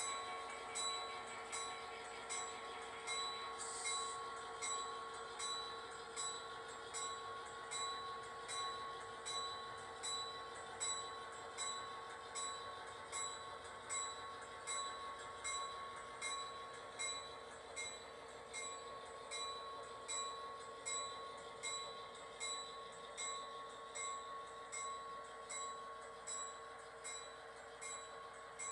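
Sound from a model railroad layout with its locomotive models running: a steady hum under a short metallic ring that repeats evenly about once every 0.7 seconds.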